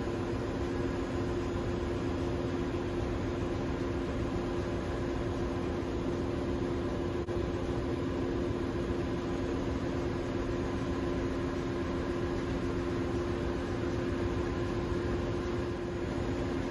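Steady ship's engine-room machinery noise: a constant low drone with two steady tones under an even hiss of running plant and ventilation.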